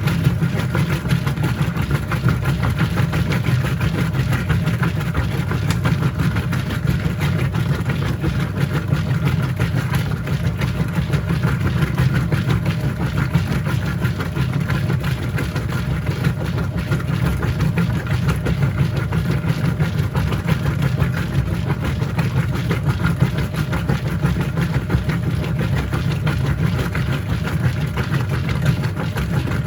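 Whirlpool top-load washing machine running steadily in its wash cycle, a continuous low motor hum that never pauses.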